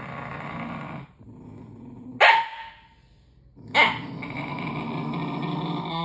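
A dog growling at its own reflection in a mirror, a threat growl, broken by two sharp barks about two and four seconds in, then growling steadily.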